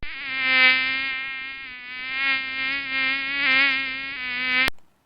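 Mosquito whining in flight: a steady buzzing hum with many overtones and a slight waver in pitch, which cuts off suddenly near the end.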